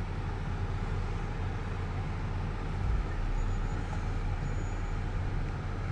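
Toyota FZJ80 Land Cruiser's straight-six engine idling, a steady low drone heard from inside the cab, with a brief low bump about halfway through.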